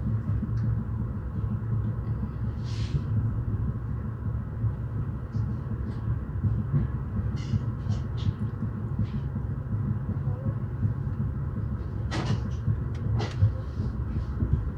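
Steady low rumble of a moving passenger train, with scattered light clicks and two sharper knocks near the end.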